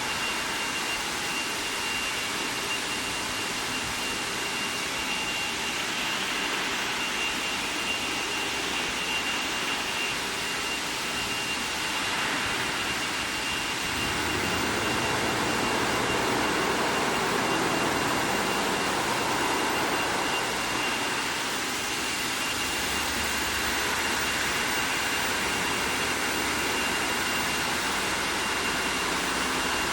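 Steady machinery noise from a steel wire hot-dip galvanizing line, with a constant high-pitched whine over it; the noise swells a little about halfway through.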